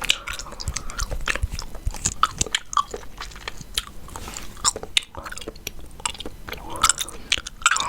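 Chewing gum being chewed close to the microphone, with a quick, irregular run of wet clicks and smacks.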